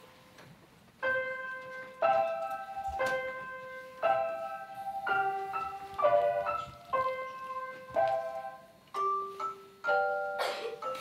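Music: a bright, bell-like keyboard tune, with notes and chords struck about once a second, starting about a second in.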